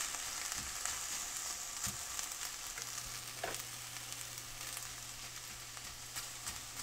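Mixed vegetables sizzling in a hot cast iron skillet, with a few light scrapes and taps of a spatula stirring them.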